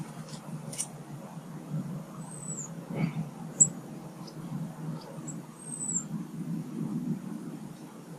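Small garden birds giving a few thin, very high calls: two brief down-slurred chirps and several sharp short notes, the loudest about halfway through. Under them runs a steady low rumble of road traffic.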